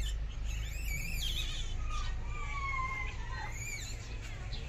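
Small birds chirping and calling, with a couple of drawn-out, slightly falling whistled notes about two seconds in, over a steady low rumble.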